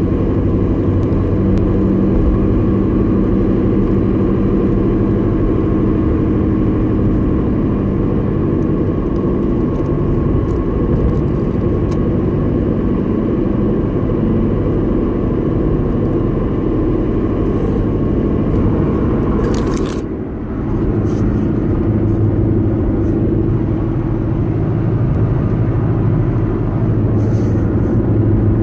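A 2011 Honda Civic running with a steady hum, the unexplained noise its owner is asking about. A whine in the hum fades about twenty seconds in, the overall level dips briefly, and the steady running sound then continues.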